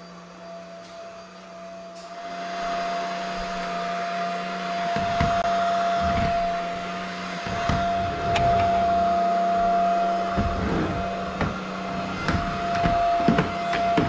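VAKYOU VC001 cordless stick vacuum with a 400 W brushless motor, running with a steady whine. About two seconds in its suction noise grows louder, and from about five seconds it is pushed back and forth, with low knocks and scattered clicks.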